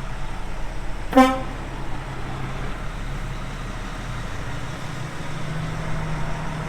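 A short horn toot about a second in, over the steady low hum of the grain truck's engine running.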